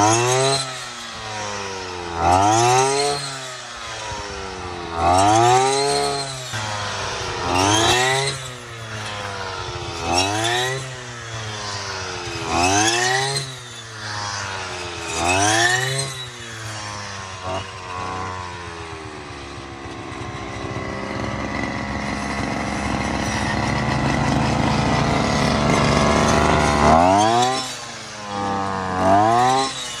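Shoulder-carried brush cutter cutting wheat: its small petrol engine revs up and falls back about every two and a half seconds, one surge per swing. For several seconds in the second half it holds a steadier, slowly rising run, then drops back to the same revving swings near the end.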